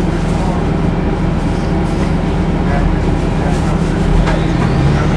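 Orion VII Hybrid transit bus running, heard on board: a steady drive drone and hum, with a whine that rises in pitch near the end.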